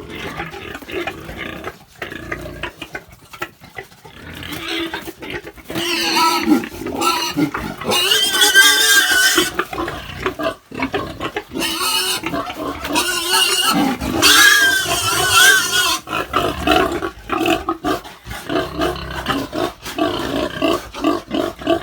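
Pigs grunting, with loud high squeals at about six to nine seconds in and again from about twelve to sixteen seconds in, during a boar's first attempt to breed a gilt.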